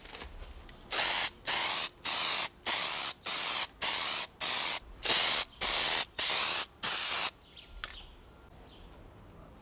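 Aerosol spray can of Plastidip rubber coating sprayed in about a dozen short hissing bursts, roughly two a second, stopping a little after seven seconds in.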